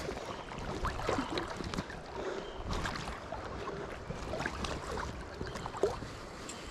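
River water flowing and gurgling, with a few small splashes and ticks standing out.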